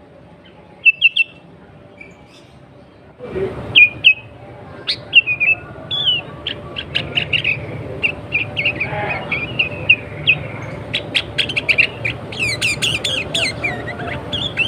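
Sooty-headed bulbul (kutilang) calling in short chirping phrases. About three seconds in a low background hum and noise come up, and the chirps turn dense and rapid, crowding together in the last few seconds.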